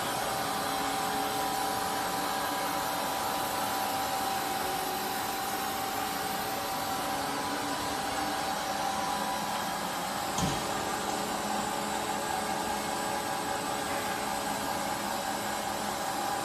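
Steady whir and hum of a running CNC turning lathe, with a constant whine held at one pitch. One brief knock about ten seconds in.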